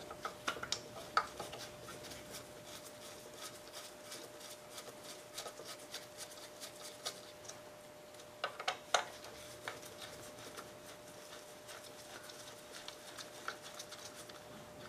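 Hand nut driver working rusty screws out of an antique Briggs & Stratton 5S engine: faint metallic ticks and scrapes, with a couple of louder clinks about eight and a half seconds in.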